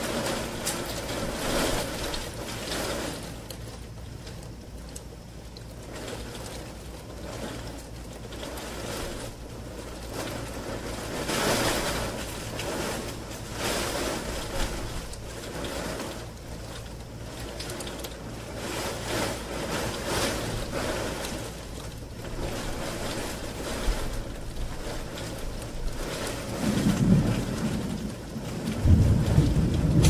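Rain pattering on a bedroom window, heard from inside, with a steady hiss and repeated brief swells. Distant thunder rumbles in low and grows louder near the end.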